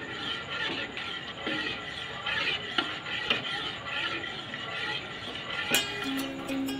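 Metal spoon stirring thick chocolate sauce in a stainless steel saucepan, scraping the pan with a few light clinks against its side. Plucked-string background music comes in near the end.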